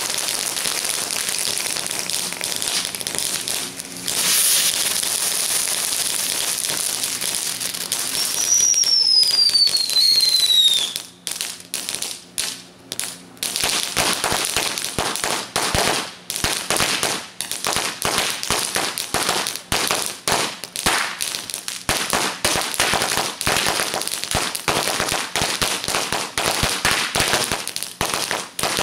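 Chained consumer fireworks going off: dense crackling and hissing from spark fountains, then a whistling firework gliding down in pitch about nine seconds in. From about eleven seconds a long run of sharp firecracker pops, several a second, from a string of Black Cat firecrackers going off.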